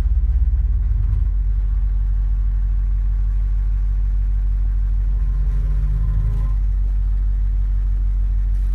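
Live noise music from amplified homemade instruments and electronics: a loud, steady low rumbling drone with faint higher tones drifting in and out, and a slightly higher hum swelling about five seconds in.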